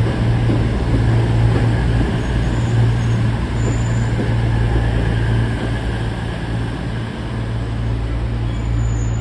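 A diesel train's engine running with a steady deep hum, easing off slightly near the end.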